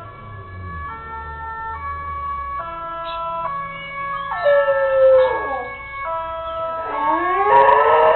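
A siren sounding in stepped tones, changing pitch about once a second, with a dog howling along to it: a falling howl about four and a half seconds in and a rising howl near the end, the howls the loudest part.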